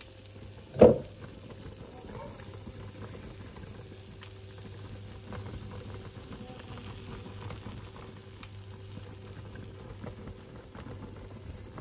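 Egg and silky tofu mixture cooking over low heat in a nonstick frying pan, with faint crackling and bubbling over a steady low hum. A single short knock sounds about a second in.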